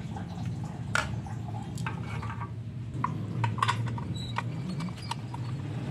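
Plastic muffler tip cover being handled and fitted onto a scooter's exhaust: scattered light clicks and taps of plastic against the metal muffler, over a steady low hum.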